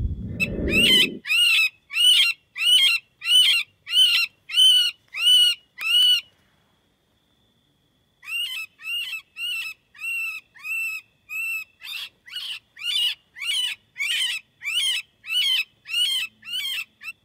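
Electronic predator call playing a prey distress sound: short, high, wailing cries repeated about one and a half times a second, with a pause of about two seconds midway. A low rumble of handling noise in the first second.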